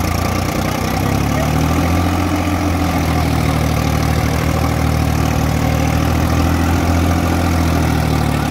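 Sonalika DI 50 tractor's diesel engine running steadily.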